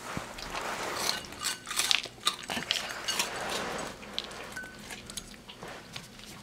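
A dachshund crunching and chewing freeze-dried meat treats: a quick string of sharp crunches that thins to a few fainter clicks about four seconds in.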